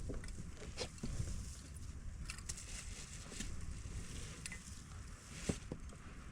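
Wind rumbling on the microphone, with a handful of light ticks and crackles scattered through it.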